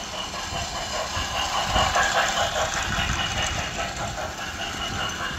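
Toy steam train running on plastic track: a continuous rattling and whirring of its motor and wheels, loudest about two seconds in as it passes close by.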